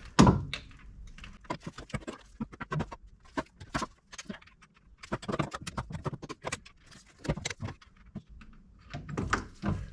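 Irregular metallic clicks and clinks of a hand tool working the bolts on a gearbox differential cover, the loudest one just after the start.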